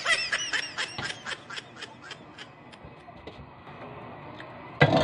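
A rapid series of short high-pitched chirps, like a small animal's call, slowing and fading over about two seconds. A loud clatter of dishes comes near the end.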